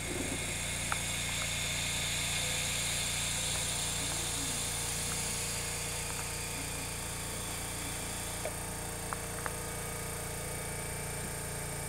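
Stationary electric railcar's underfloor equipment running: a steady electrical hum with a high whine over it, and a few faint clicks.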